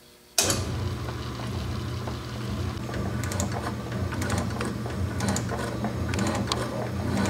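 South Bend metal shaper running, its cutting tool taking strokes across an aluminum casting: a steady motor and drive hum with scattered sharp clicks. It begins abruptly about half a second in.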